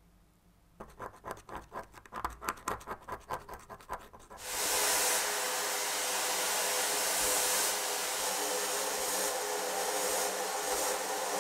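A rapid run of scratching strokes, about four a second. About four and a half seconds in, a sandblaster starts suddenly with a loud steady hiss, blasting the old chrome off a small cast toy-locomotive wheel inside a blast cabinet.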